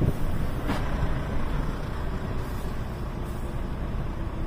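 Heavy truck's diesel engine running steadily while the truck is driven, heard from inside the cab as a low rumble.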